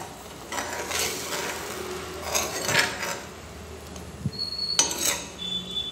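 A spatula stirring and scraping through thick curry gravy in a pan, in several separate strokes.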